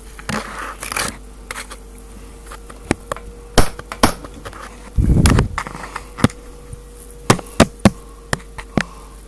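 Handling noise from a camera held and moved right up against something: scattered sharp clicks and taps, a louder low rumble about five seconds in, over a faint steady hum.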